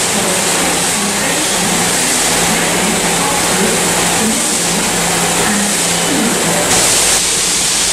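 Class 158 diesel multiple unit standing at the platform with its underfloor diesel engine idling: a steady hum over a constant hiss, with a brief louder hiss near the end.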